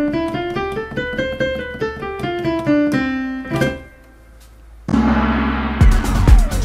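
Piano sound on a keyboard playing the C major scale quickly, one octave up and back down, ending on a held low C. About five seconds in, loud electronic music with a drum beat starts.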